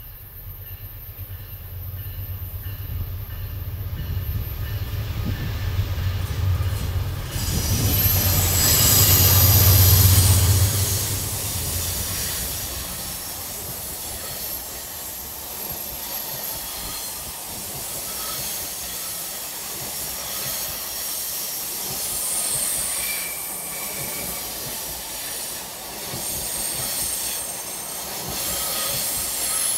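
Diesel locomotive of a passenger train approaching and passing, its low engine drone growing to its loudest about ten seconds in, then the passenger coaches rolling by with steel wheels squealing on the rails as the train comes into the station.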